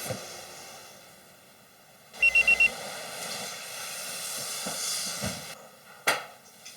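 Four quick, high electronic beeps in rapid succession about two seconds in. A few seconds of noisy rushing follow, then a single sharp knock near the end.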